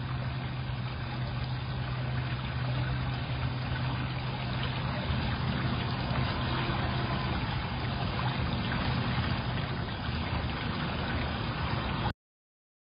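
Steady hiss with a constant low hum underneath, the background noise of a night security camera's microphone, cutting out to silence about twelve seconds in.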